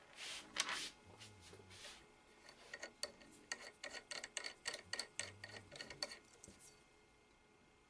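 A run of light, sharp clicks and ticks, several a second, from a hand working the collet nut on the spindle of a DeWalt 611 router, after a little soft rubbing at the start.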